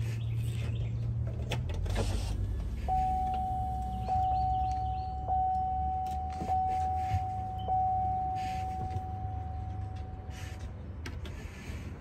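A vehicle's warning chime dinging five times, a little over a second apart, with each ding ringing on and the last fading away, over a low steady hum and a few clicks.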